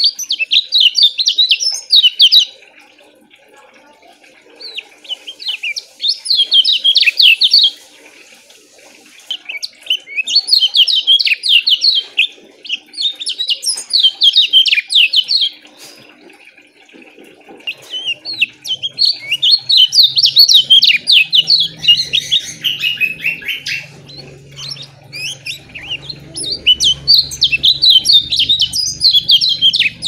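Caged kecial kuning (lemon-bellied white-eye) singing: bursts of rapid, closely packed high chirping, each two to six seconds long, with short pauses between them.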